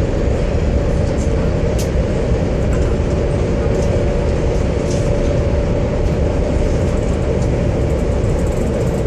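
Inside the passenger car of a high-speed train running at speed: a loud, steady rumble with a constant hum and a few faint ticks.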